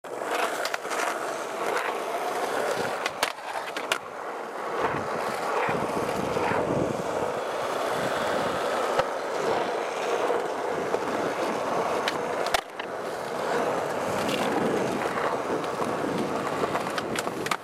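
Skateboard wheels rolling on rough concrete, a steady grinding rumble, broken by a few sharp clacks of a board about three, four and twelve and a half seconds in.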